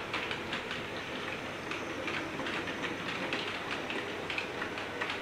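Model railway train running on the layout: a steady, quiet whirr of the locomotive and its wheels on the rails, with light irregular clicking.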